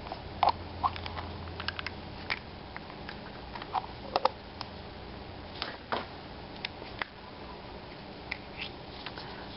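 Scattered light plastic clicks and taps: a small plastic surprise egg being handled and opened, and tiny toy figures being set down on a table.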